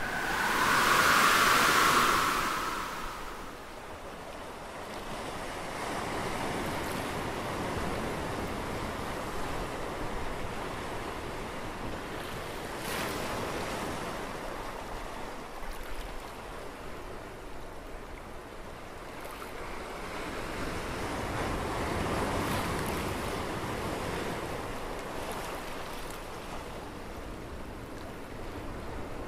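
Ocean surf and wind ambience, a steady rushing wash that swells and ebbs. There is a loud rushing surge in the first few seconds and a softer swell about two-thirds of the way through.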